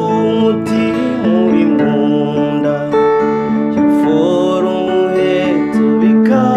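Acoustic guitar strummed together with an electronic keyboard holding sustained chords, with a man's voice singing over them in places.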